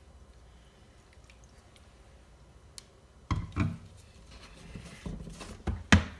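White vinegar poured from a bottle into a plastic measuring cup and over raw chicken strips in a ceramic dish: faint pouring, then from about three seconds in a few knocks and clatters of the bottle and cup, the sharpest near the end.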